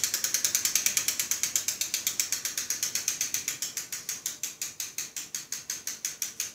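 Freely spinning bicycle wheel coasting down, with an even ratchet-like clicking. It runs at about nine clicks a second at first and gradually slows to about five a second as the wheel loses speed.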